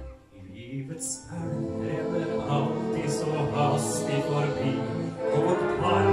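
Live orchestra accompanying a male singer: a held chord ends at the start, there is a brief hush, and about a second in the singing and the orchestra pick up again.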